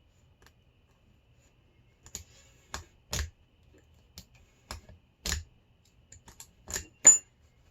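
Hurd padlock being picked: about a dozen sharp metal clicks from the pick and tension wrench working in the lock, irregularly spaced, starting about two seconds in, the loudest near the end.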